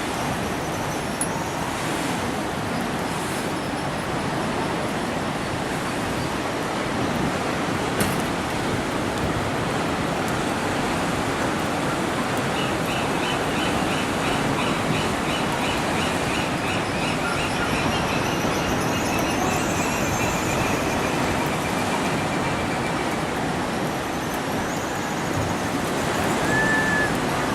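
Seabirds calling over a steady rushing roar. About halfway through, one bird gives a quick series of short repeated notes, about three a second, that drifts slightly lower in pitch over several seconds.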